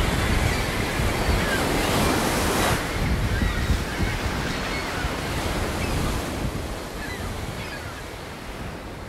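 Ocean surf breaking and washing in a steady, dense rush, with wind buffeting the microphone, fading out over the last few seconds.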